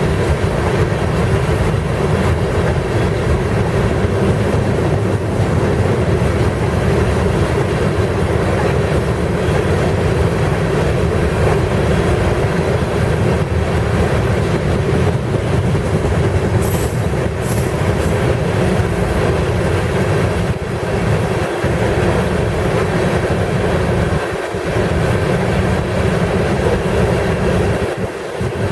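Loaded rock train's freight cars rolling past: a steady rumble and clatter of wheels on the rails, with a brief high squeal about halfway through.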